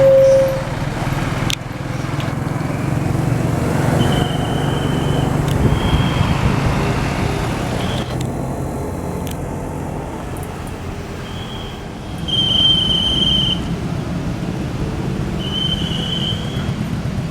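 Road traffic: engines of passing vehicles rumbling steadily, swelling about two-thirds through. Several short, high whistle-like tones sound over the rumble, the loudest about two-thirds through.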